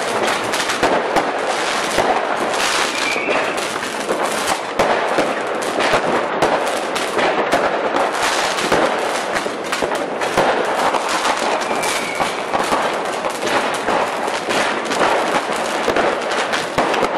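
Fireworks and firecrackers going off in a dense, continuous crackle of many overlapping bangs, with no pause.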